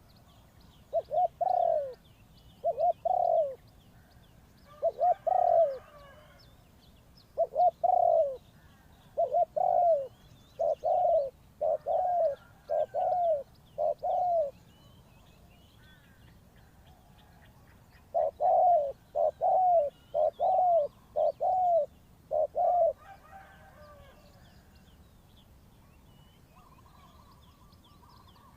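Spotted dove cooing: a run of about nine short coos about a second apart, a pause of a few seconds, then five more. Small birds chirp faintly throughout.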